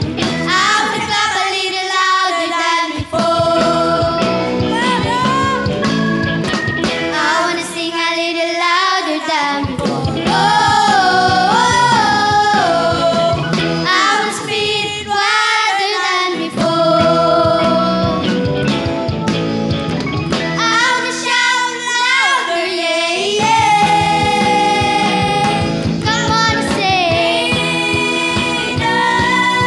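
Children's choir singing a gospel song in unison over musical accompaniment.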